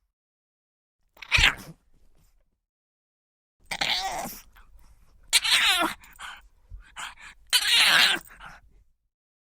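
Pug dog vocalizing: one short sharp call about a second in, then after a pause a run of breathy, groaning calls with wavering pitch, three long ones between smaller huffs.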